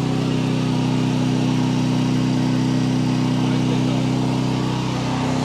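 Small gas engine of a pressure washer running at a steady speed, driving the pump that sprays soft-wash cleaner applied downstream.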